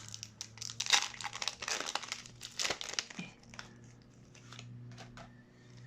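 Foil wrapper of a Pokémon booster pack crinkling and tearing as it is opened by hand: dense crackles for about the first three seconds, then fewer and quieter.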